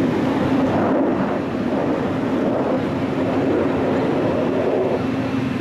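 Steady jet noise from the F/A-18F Super Hornet's two engines during its flying display, with a steady low hum underneath.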